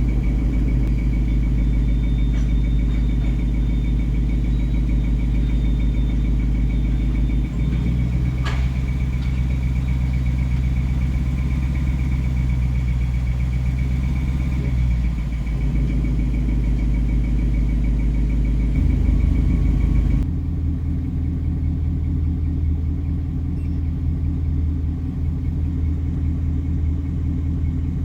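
2019 Ford Mustang GT's 5.0 V8 running, with a thin, steady high-pitched squeak from the front of the engine over the exhaust rumble. The owner takes the squeak for a loose or squeaky belt. The engine note changes a couple of times, there is one sharp click about a third of the way in, and the squeak drops out after a cut about two-thirds of the way through.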